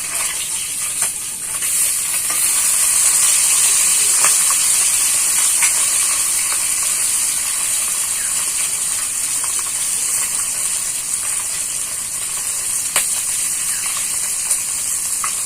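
Parshe fish shallow-frying in hot vegetable oil, sizzling steadily. The sizzle grows louder about two seconds in, and a few sharp clicks sound through it.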